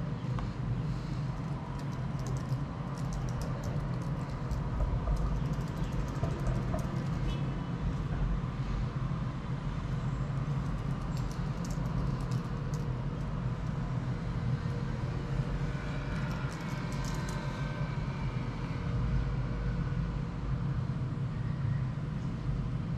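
Steady low background hum with a faint steady tone, and clusters of light scratching from a ballpoint pen writing on notebook paper now and then.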